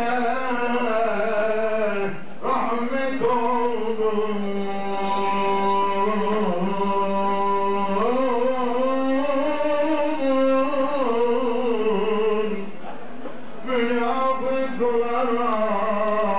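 A solo male voice chanting Islamic religious recitation in slow, melodic phrases with long held, ornamented notes, breaking off for breath about two seconds in and again near the end.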